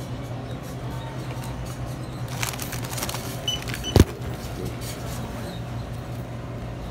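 Steady low vehicle engine hum, with a few light clicks and one sharp thump about four seconds in.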